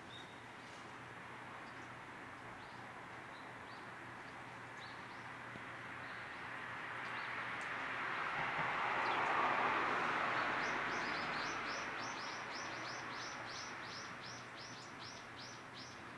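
Small birds chirping in a garden: scattered faint high chirps, then in the second half a quick run of short, high, downward-sliding chirps, about four a second. A broad rushing noise swells and fades through the middle and is the loudest sound.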